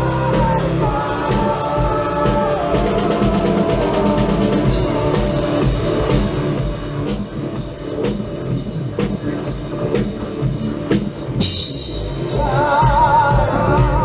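Metal band playing live through a venue PA: male lead vocals over drums and guitars at first, then an instrumental stretch driven by the drums, with the singing coming back with vibrato near the end.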